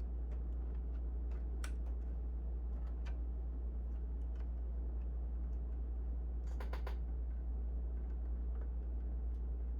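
Light, scattered clicks and ticks of a graphics card's power cable and connector being handled and fitted, with a quick cluster of several clicks about two-thirds through, over a steady low hum.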